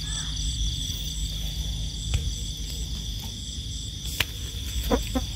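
Night insects, crickets, chirping steadily: one high continuous trill with a higher pulsing chirp over it. A few soft clicks and brief rustles break through near the middle and the end.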